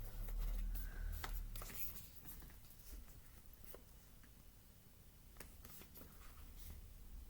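Faint rustling and light taps of hands handling a boxed tarot deck and its packaging, busier in the first couple of seconds and then sparse, over a low steady hum.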